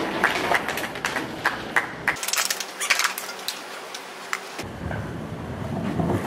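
Skateboard wheels rolling on rough pavement, with scattered sharp clicks and knocks as the board rides toward a ledge for an ollie. The low rolling rumble drops away for a couple of seconds in the middle, then comes back.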